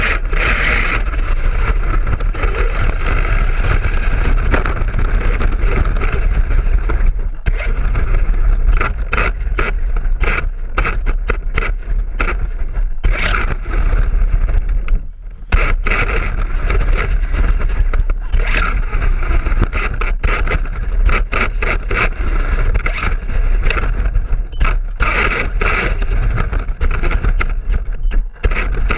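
Onboard sound of a Traxxas E-Revo VXL radio-controlled truck with a brushless motor driving hard over a dirt path: the motor and drivetrain running under a constant heavy rumble of wind and vibration on the mounted camera, with many quick knocks from bumps and thrown dirt. The sound drops off briefly about halfway through, then picks up again.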